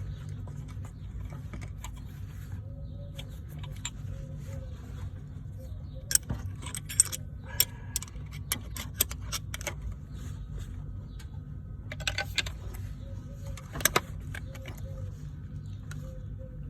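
Metal tools clinking and clanking on a van's rear brake caliper, working its badly seized piston, in two bursts of sharp knocks, about six seconds in and again near twelve to fourteen seconds, over a steady low hum.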